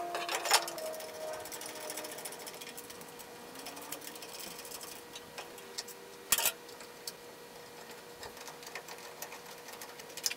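Rapid light metal clicking and clinking as a steel engine-mount bracket and its bolts are fitted by hand to the car's frame rail, with two sharper metal knocks, one just after the start and one about six seconds in. A faint steady hum underneath.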